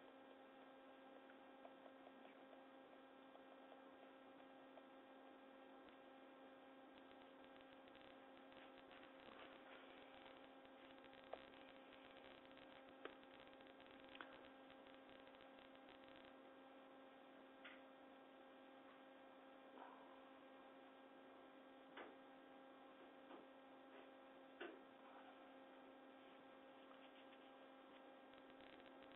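Near silence: a faint steady electrical hum, with a few faint, short ticks scattered through the second half.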